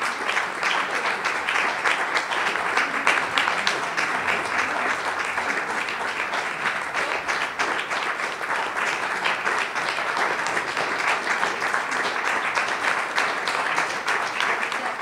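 Audience applauding: many hands clapping steadily, a dense even patter that neither builds nor fades.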